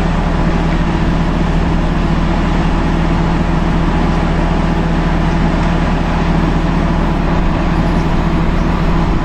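Steady, loud machine hum with a low drone that holds unchanged throughout.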